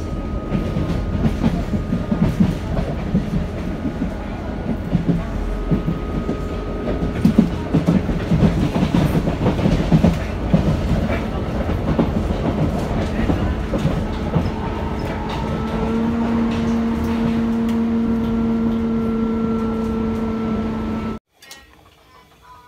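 Commuter train carriage in motion, heard from inside: wheels rumbling and clattering over the rails, with a steady whine rising into prominence for the last few seconds. It cuts off suddenly near the end.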